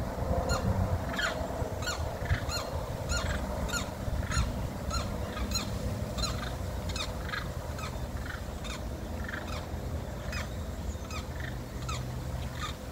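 Limpkins calling over and over in a territorial dispute, about two to three calls a second, the calls thinning out near the end.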